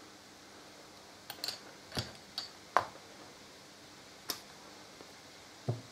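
Light, irregular clicks and taps of hand tools being handled and set down on a workbench, about seven in all, the sharpest a little under three seconds in.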